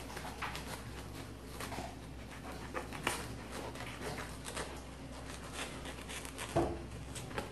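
A wilted banana leaf being torn by hand along its veins: soft, irregular ripping and rustling of the leaf, with a louder short thump about six and a half seconds in.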